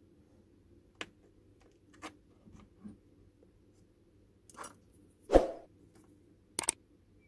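Handling noise from a car subwoofer amplifier being held and worked on at the bench: a few light clicks and scrapes, and one louder thump a little past five seconds in, over a faint steady hum.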